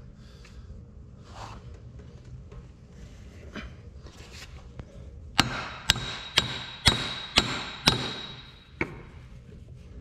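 A hammer striking a metal part six times, about two blows a second, with a ringing metallic tone after each, then one lighter tap. Faint handling sounds come before the blows.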